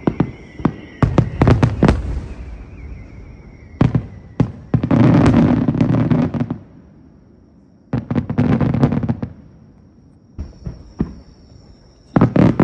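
Aerial fireworks going off: several sharp single bangs, then dense clusters of crackling bursts about five and eight seconds in, and another crackling volley starting near the end. A thin falling whistle fades out in the first few seconds.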